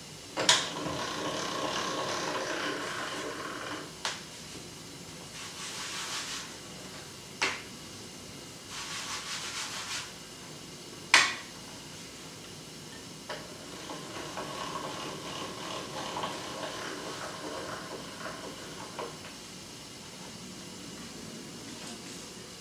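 Hand-cranked pasta machine rolling a sheet of pasta dough thinner: grinding, rubbing runs of the crank and rollers, each a second to a few seconds long, broken by sharp clicks and knocks. The loudest knock comes about 11 seconds in.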